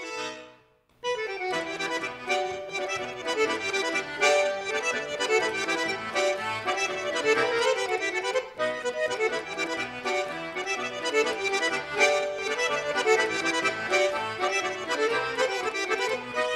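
Two Schwyzerörgeli (Swiss diatonic button accordions) playing a folk-style tune together. The music starts about a second in, after a brief silence.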